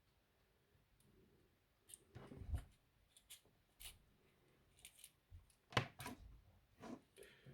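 Faint, scattered clicks and snips of small hand tools working on thin battery wires, the sharpest about six seconds in.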